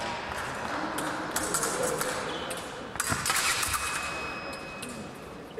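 Épée blades clicking and clinking against each other amid footwork and hall noise, busiest about three seconds in, with a steady high beep lasting over a second past the middle.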